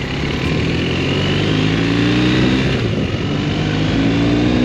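BMW R1250RS boxer-twin engine accelerating: its pitch rises, drops at a gear change about three seconds in, then rises again. Heavy wind noise on the jacket-mounted microphone runs under it.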